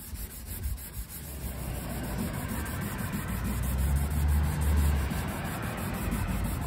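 A low motor-vehicle engine rumble that swells to its loudest about four to five seconds in and then eases a little, with a hiss growing alongside it.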